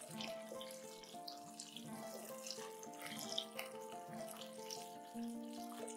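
Pomfret frying in shallow oil in a nonstick pan, a steady sizzle with small crackles, under soft background music playing a slow melody.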